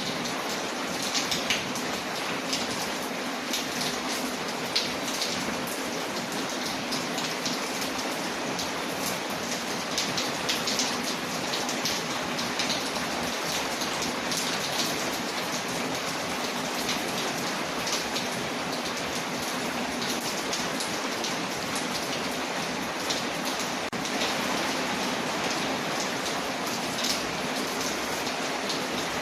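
Steady rain on a window mixed with a crackling wood fire, its small sharp pops scattered irregularly through the even hiss of the rain.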